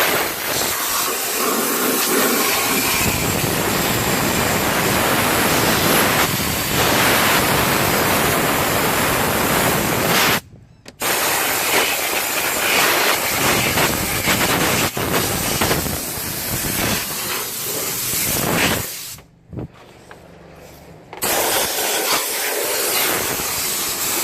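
Compressed-air blow gun hissing in long blasts, stopping abruptly for a moment about ten seconds in and for about two seconds near the end. It is blowing built-up leaf debris out of the car's cowl area.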